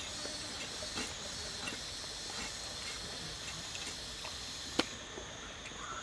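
Cleaver cutting raw chicken legs on a board: light knocks every second or so and one sharp knock near the end, over a steady hiss of outdoor background noise.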